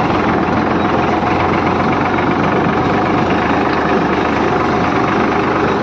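Diesel farm tractor engine running steadily, heard up close from the driver's seat as the tractor moves slowly across a field.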